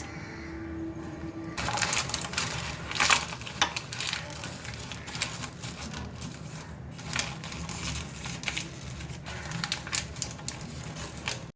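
Irregular clicks and clatter over a steady low hum, starting about a second and a half in.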